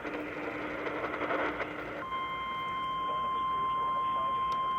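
Emergency alert tones between weather warnings: a short burst of hissing noise, then from about two seconds in a single steady alarm tone, the NOAA Weather Radio 1050 Hz warning alert tone that comes before a warning message.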